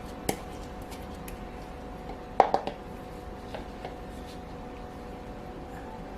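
Pestle knocking in a mortar as fresh oregano leaves are pounded for their juice: a few sharp knocks, the loudest a double knock about two and a half seconds in, with fainter taps after it.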